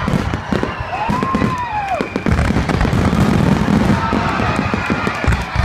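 Aerial fireworks going off in a rapid run of crackling pops and bangs. About a second in there is a whistle that rises and then falls, and from about two seconds on a low rumble runs beneath the crackle.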